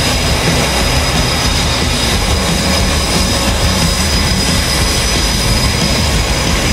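Boeing F/A-18F Super Hornet's twin turbofan engines idling on the ramp: a steady, loud jet noise with a high whine held over it.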